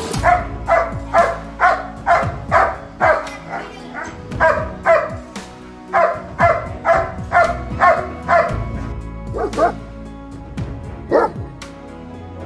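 German shepherd barking in a steady run of deep barks, about two a second, then two more single barks spaced apart near the end, over background music.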